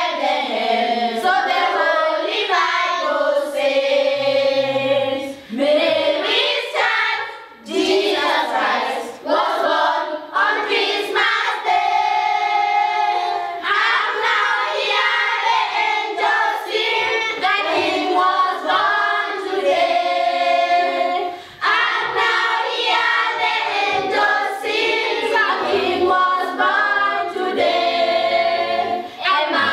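A small group of children and adults singing together as a choir, with held notes.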